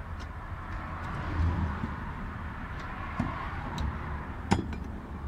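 A few light clicks and knocks of plastic parts as a car's fuel pump module is handled in the fuel tank opening, with one sharper knock near the end, over a low steady background rumble.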